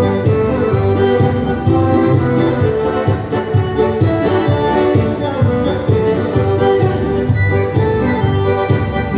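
Dance-band music with accordion over a steady bass beat, about two beats a second.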